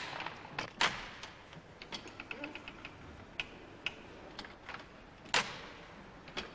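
A model of Thimonnier's chain-stitch sewing machine being worked by hand, its hooked-needle mechanism clicking and knocking irregularly. Two louder knocks come about a second in and about five and a half seconds in, with a quick run of light ticks a little after two seconds.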